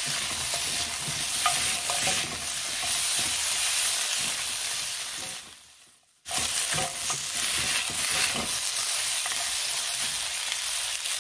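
Pork ribs, taro and Chinese sausage sizzling in hot oil in a wok while a spatula stirs and scrapes them through the pan, tossing everything together to mix evenly. About halfway through, the sound fades out and cuts back in abruptly a moment later.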